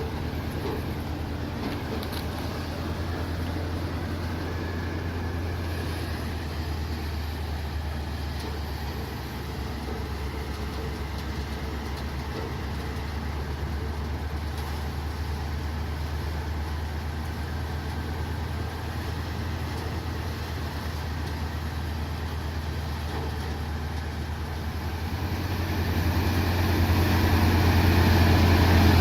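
An engine running steadily with a low, even hum, getting louder near the end.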